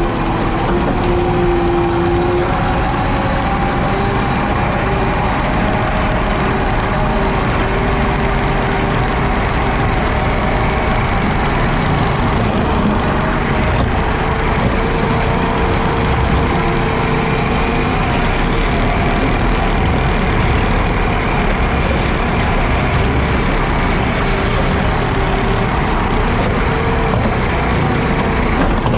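JCB teleskid skid steer running with a 7-foot Jenkins bush hog mowing: a loud, steady drone with whining tones that drift slightly in pitch.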